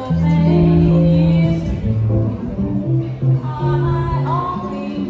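Music: a song with singing over held bass notes and guitar.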